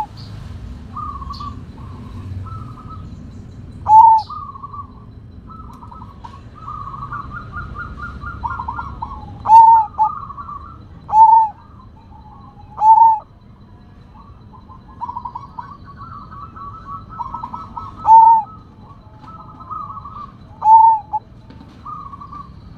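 Sumbawa zebra dove (perkutut) singing: soft, rapid, stuttering coos broken by about eight loud, short 'kook' notes, each rising and falling briefly in pitch.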